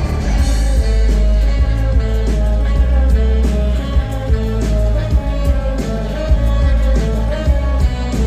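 Live rock band playing loudly through a PA: electric guitar, bass guitar and drum kit, with a heavy, booming bass low end and steady drum hits.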